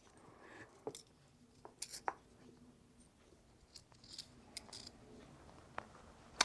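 Faint handling noise of small metal hand tools: about eight light clicks and taps with soft scraping between them, loudest at about two seconds and at the very end, as a crimped battery-cable terminal is checked.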